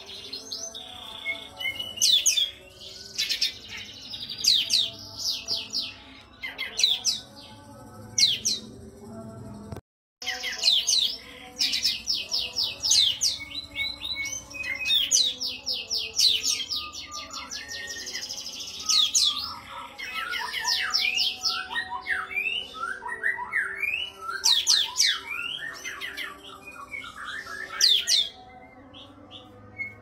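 Kapas tembak bulbul singing: quick runs of sharp, high chirps and rattling trills, with lower sliding whistled notes in the second half. The sound cuts out for a moment about ten seconds in.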